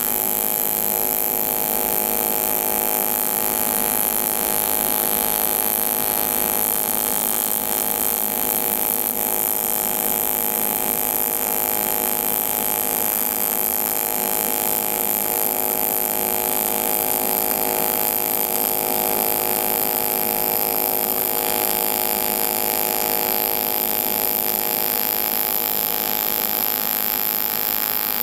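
AC TIG welding arc from an Everlast 200DV running on cast aluminum as a weld bead is laid, a steady, unbroken tone that holds throughout.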